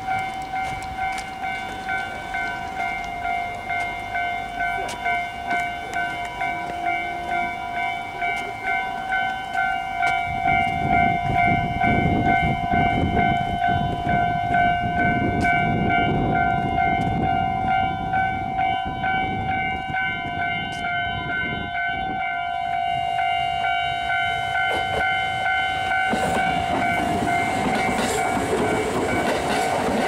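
Japanese level-crossing warning bell ringing in quick electronic pulses, about two a second. Under it a train rumbles past for about ten seconds from around ten seconds in, and another train is heard coming in near the end.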